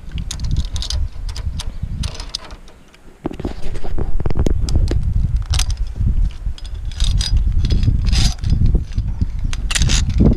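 Metal clinking and jangling of a zipline trolley and carabiners on the steel cable being handled, over a low rumble that grows louder about three seconds in.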